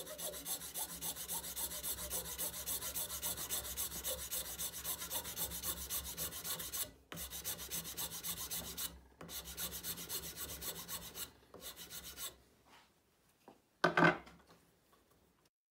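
Flat steel hand file rasping quickly back and forth across a wooden piano key, levelling hardened polyester resin filler in its old capstan holes; about four strokes a second, with a few short pauses, until the filing stops after about twelve seconds. A single brief, louder knock follows near the end.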